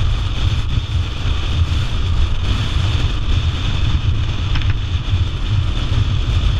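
Steady wind rush over the microphone of a motorcycle under way at road speed, with a constant low rumble underneath.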